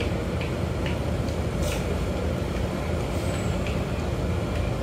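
Large diesel bus engine idling with a steady low rumble, with a short hiss about a second and a half in.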